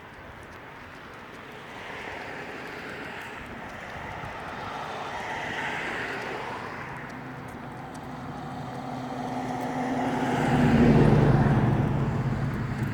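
Road traffic passing: a couple of vehicles go by faintly, then a car passes close, its engine and tyres swelling to the loudest point a couple of seconds before the end and fading away.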